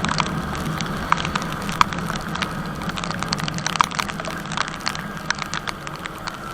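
Yamaha R15 V3's 155 cc single-cylinder engine running steadily on the move, a low hum under wind noise, with scattered sharp ticks and cracks throughout.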